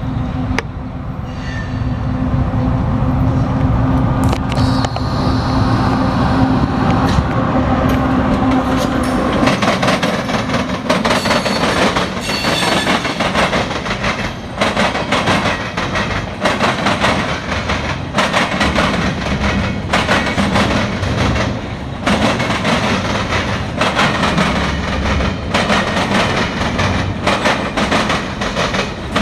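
Diesel-hauled freight train passing close by: for the first several seconds the approaching locomotive gives a steady low drone with a held hum, then from about ten seconds in the freight cars roll past, their wheels clacking in a rapid, uneven run over rail joints and switches.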